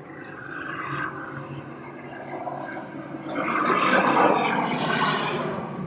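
Firefighting floatplane's engine and propeller flying low overhead. The noise swells to its loudest about four seconds in, then begins to ease off.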